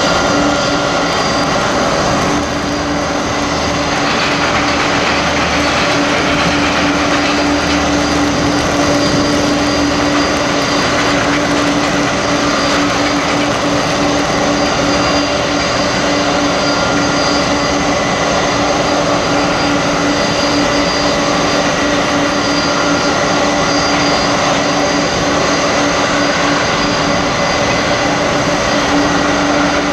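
Boeing 747-400 jet engines running at idle during pushback: a loud, steady whine over a rushing hiss, unchanged throughout.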